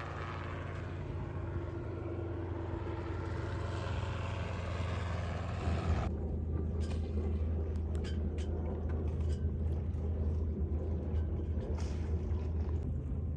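A steady low engine rumble with wind and water hiss. About six seconds in, the higher hiss cuts off abruptly and the low rumble carries on, with a few faint clicks.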